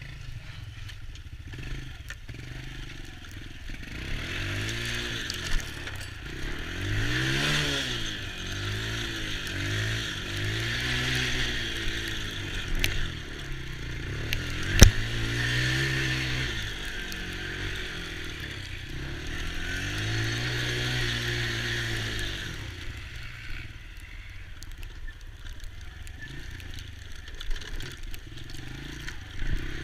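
Small ATV engine running, its pitch rising and falling over and over as the throttle is opened and eased off during the ride, with one sharp click about halfway through.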